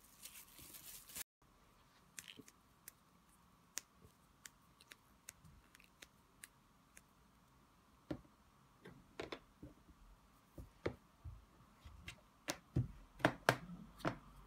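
Faint, scattered clicks and taps of hands kneading gum paste and pressing it onto a plastic cutting mat. They grow louder and more frequent near the end, as a small plastic rolling pin is set down and rolled over the paste.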